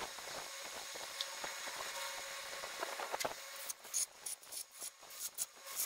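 Lug nuts being spun by hand onto a trailer wheel's studs: metal scraping and clinking, turning into a run of sharp, irregular clicks in the second half.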